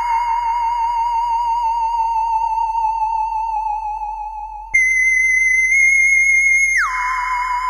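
iPhone ringtone: a theremin-like electronic tone with a fast waver that sinks slowly, jumps abruptly high about two-thirds of the way through, then glides smoothly down about an octave near the end.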